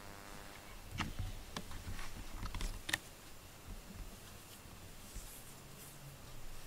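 Faint rustling and handling noise as a cat is stroked under a plush fleece blanket, with a few soft clicks and low thuds in the first three seconds, then quieter.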